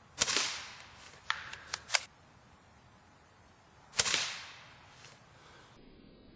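Remington 12C pump-action .22 rimfire rifle fired twice, about four seconds apart. Each shot is a sharp crack with a short ringing tail. Between the shots come four quick clicks of the pump action being worked to chamber the next round.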